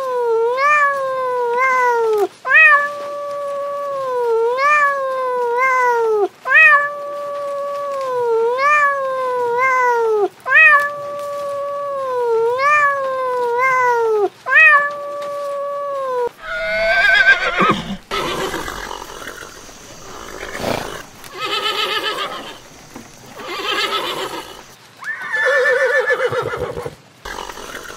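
A kitten meowing over and over in an even, repeating pattern, two long meows about every four seconds. About sixteen seconds in this gives way to horses whinnying several times.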